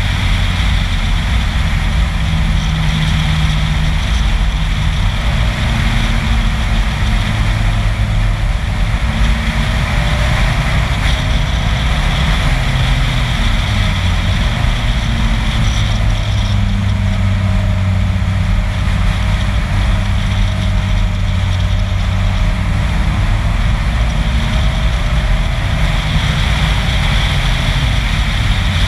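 A vehicle's engine running at road speed under a steady rush of wind and road noise on an outside-mounted camera. The engine note shifts in pitch several times.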